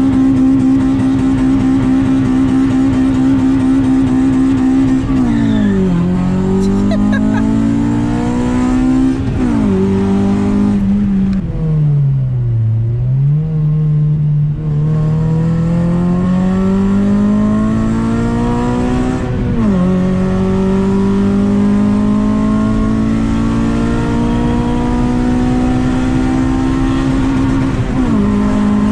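Honda Civic Si engine and exhaust, fitted with a test pipe in place of the catalytic converter, as the car is driven. The engine note climbs slowly and drops back several times as gears change, with a deeper dip and pick-up about halfway through.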